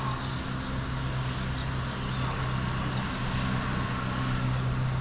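Quiet early-morning street ambience: a steady low hum with faint bird chirps high above it about once a second.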